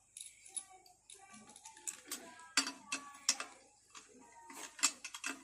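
Irregular sharp metallic clicks and clinks of hand tools and metal engine parts being handled, some with a brief ring.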